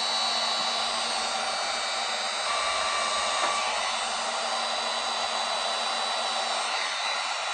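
Digital heat gun running with a steady fan hiss, blowing hot air onto the aluminum panel to warm the dent while it is pulled.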